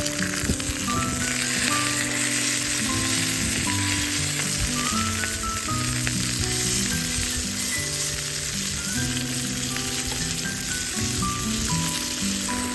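Food sizzling as it fries in a hot pan: a steady, dense hiss that starts suddenly just before this stretch and keeps on.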